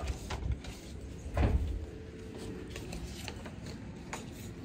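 Hotel room door being handled: a few light clicks, then a heavier thump about a second and a half in as the door is shut.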